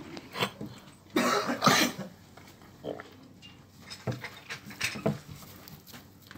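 Calves blowing breath sharply through their noses several times, the loudest two blasts close together just over a second in.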